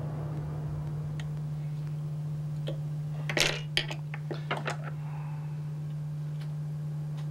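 A steady low hum, with a short run of small sharp clicks and taps about three to five seconds in from hand work on the fly at the tying vise while the head is whip-finished.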